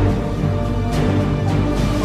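Background music with sustained held chords, a deep bass line and a regular beat of cymbal-like hits.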